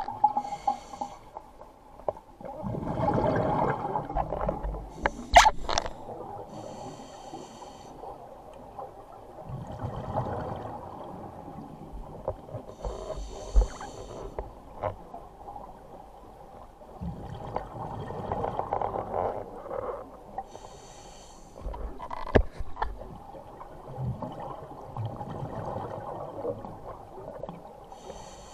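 Scuba regulator breathing heard underwater: a short hissing inhale through the regulator about every six to seven seconds, each followed by a longer burble of exhaled bubbles, with a few sharp clicks.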